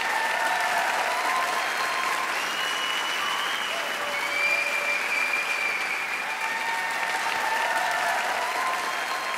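Live audience applauding and cheering, with drawn-out cheers held over steady clapping.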